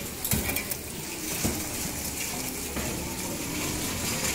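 Metal utensils clinking a few times over a steady hiss.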